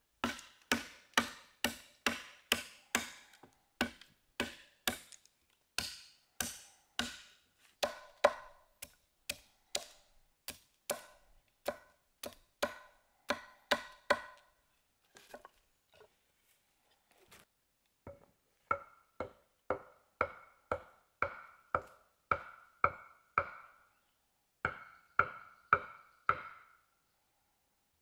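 A machete chopping a wooden stake to a point: sharp, even strokes, about two a second. After a short pause come hollow wooden knocks with a ringing tone, about one and a half a second, as a short log is used as a mallet to drive the stake into the ground.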